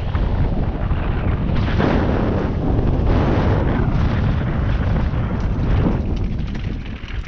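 Wind buffeting an action camera's microphone together with the rumble and rattle of a mountain bike riding fast down a rough dirt trail. A steady, heavy rumble that eases slightly near the end.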